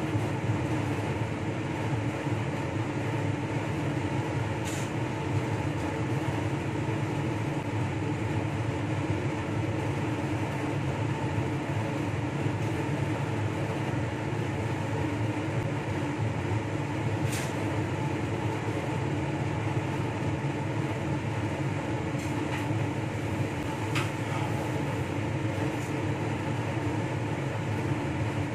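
Steady fan noise from a laminar-flow clean bench's blower, an even rushing hum that does not change. A few faint clicks of small tools come through it.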